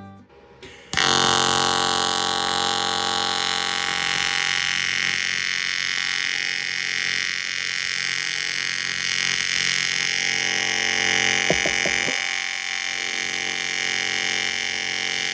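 AC TIG welding arc on cast aluminum: a steady, high buzz of fixed pitch that strikes up abruptly about a second in.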